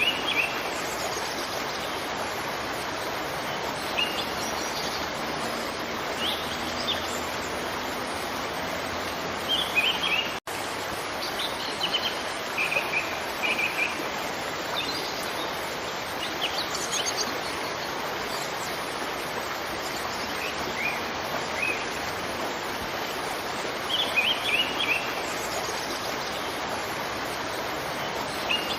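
Steady rush of a waterfall with small birds chirping over it in short scattered bursts, thickest around twelve to fourteen and twenty-four to twenty-five seconds in. About ten seconds in, the sound cuts out for an instant, like an edit or loop join.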